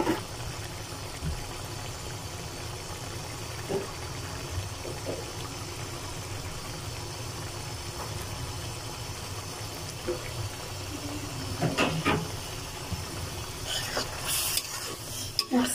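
Steady low hum and hiss of a karahi of spiced masala cooking over the stove, with a few short scrapes and knocks of a metal spatula near the end as small mola fish are stirred into it.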